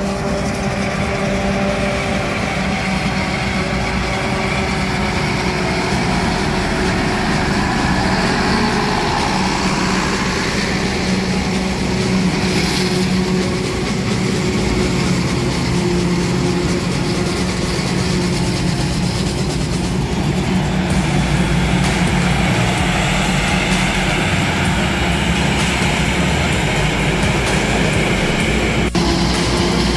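A large farm machine's engine running steadily: a constant low hum over broad mechanical noise.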